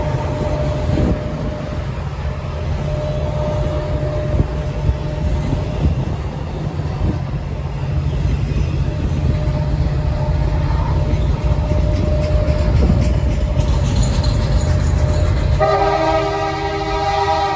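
Freight train rolling past close by: a steady low rumble of the cars and wheels on the rails. About sixteen seconds in, a locomotive air horn sounds a chord of several notes, held for about two seconds.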